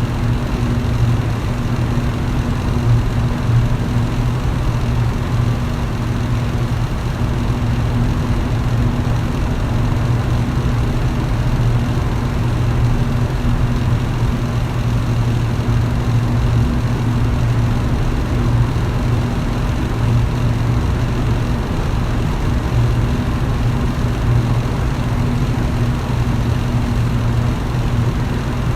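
Electric fan running steadily: a constant low motor hum under an even rush of air.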